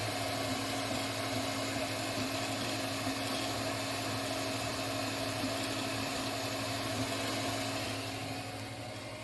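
Anet A8 Plus 3D printer running mid-print: a steady hum from its fans and stepper motors as the print head moves back and forth laying the top layers, dropping slightly near the end.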